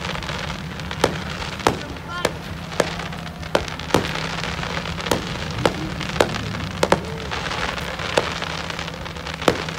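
Fireworks display: aerial shells bursting in an irregular series of sharp bangs, about one or two a second, over a steady hiss.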